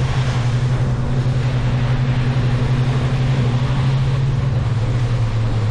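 Boat engine running steadily under way, a constant low drone, with wind and water hiss on the microphone.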